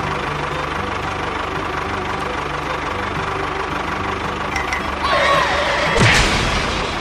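An engine running steadily at idle, with a fast, even low chugging throughout. A brief wavering, falling tone rises over it about five seconds in.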